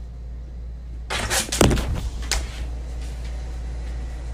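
A wooden interior door being opened by its metal knob: a clatter of latch and knob clicks with a heavy thump about a second and a half in, then another click, over a steady low hum.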